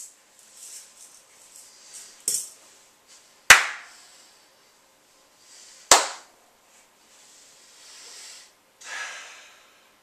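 A few sharp knocks in a small room, the two loudest about three and a half and six seconds in, with faint shuffling and rustling between them and a short rustle near the end.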